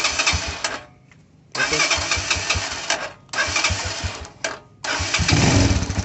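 Electric starter cranking a single-cylinder pushrod motorcycle engine (Honda CG type) in several short presses, during a spark test with the plug lead held about half a centimetre from the spark plug; the spark is there, so the ignition is working. On the last press the sound turns into a fast, even beat as the engine catches.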